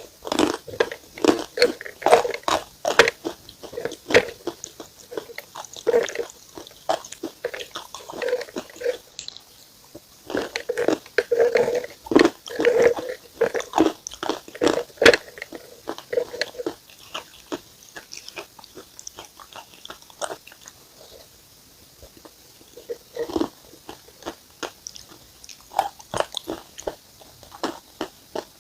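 Close, crisp crunching of bites and chewing on a hard, crunchy food eaten with a paste: dense clusters of sharp cracks, thinning to a quieter stretch about two-thirds of the way in before a few more crunches.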